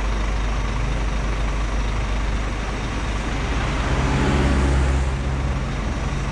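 Scania P380 dump truck driving on the road: steady engine hum and road noise. A louder, deeper engine drone swells briefly about four seconds in, then falls back.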